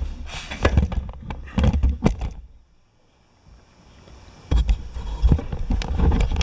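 Honda HRA214 lawnmower engine being spun over by a power drill on the flywheel nut, spark plug out, with a rattly, clicking rumble in two bursts and a pause of about two seconds between them.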